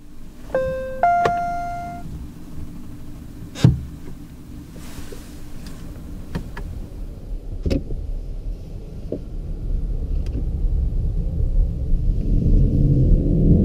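Cabin sound of a 2015 VW Golf 7 GTE plug-in hybrid on the move: a steady low road and drivetrain hum with a couple of sharp knocks. From about twelve seconds in, the engine note grows steadily louder as the car begins to accelerate hard. A two-note rising chime sounds near the start.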